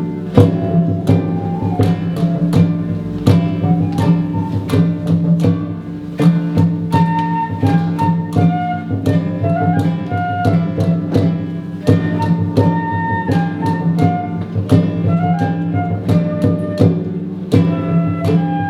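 Small early-music ensemble playing a medieval dance: a melody moving over a sustained low drone, with regular percussion strikes keeping the beat.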